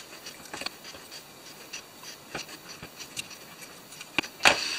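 Small clicks and taps of carbon-fibre drone frame parts and hardware being handled on a cutting mat, with a louder brief scrape near the end.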